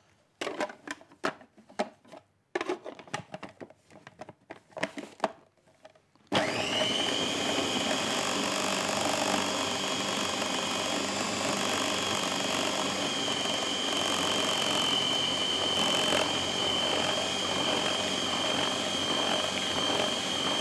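Electric food processor mincing raw chicken meat to a paste. It starts suddenly about six seconds in, after a few scattered clicks and knocks, and runs steadily with a high whine.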